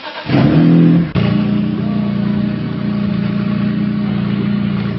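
BMW E46 sedan's straight-six engine revving briefly, then settling suddenly into a steady idle about a second in.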